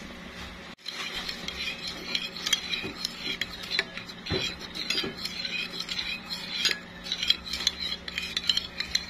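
A spoon stirring a liquid calamansi and soy sauce marinade in a bowl. It makes quick, irregular clinks and scrapes against the bowl that begin about a second in.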